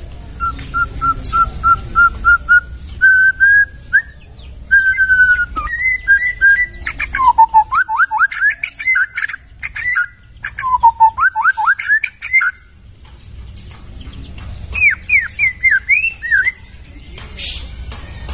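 White-rumped shama (murai batu) singing: a run of about nine quick, even whistled notes, then varied whistled phrases with steep sweeps down and up. A short pause past the middle, then a last burst of rising and falling whistles.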